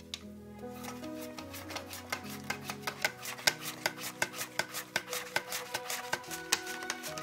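Zucchini being sliced on a plastic handheld mandoline: rasping strokes of the blade in a quick, even rhythm, several a second.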